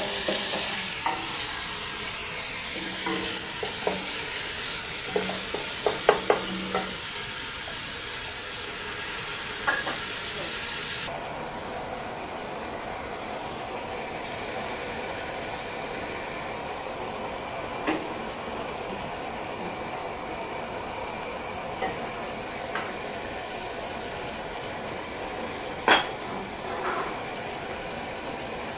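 Chopped tomatoes and green pepper frying with onion and garlic in a pan: steady sizzling with the scrape and clicks of a spoon stirring. About eleven seconds in the sizzle drops suddenly to a quieter hiss, and a single sharp knock comes near the end.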